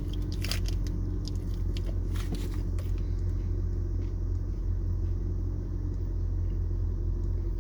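A person biting into and chewing a chewy peanut granola bar, with a few crisp clicks in the first three seconds, over a steady low rumble.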